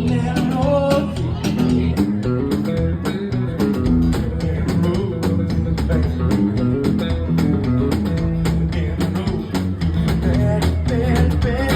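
Live band playing: guitar over a bass line and a steady drum beat.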